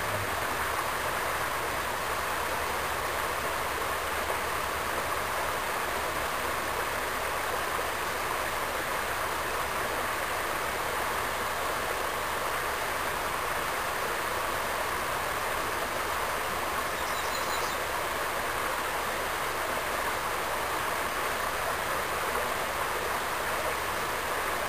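Shallow creek water running steadily, a constant even rushing wash.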